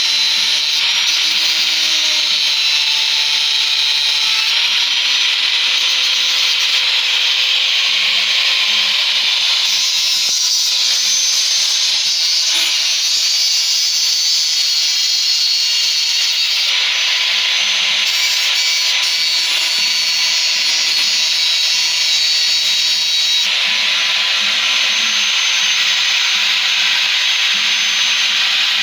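A power tool running steadily throughout, its sound shifting a few times, about a third of the way in, around halfway and again later on.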